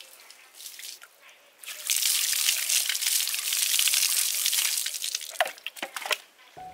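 Water poured from a scoop splashing over a hanging fish and onto the concrete as it is rinsed. The pour starts about two seconds in and runs steadily for about three seconds, then breaks up into a few last drips and splashes.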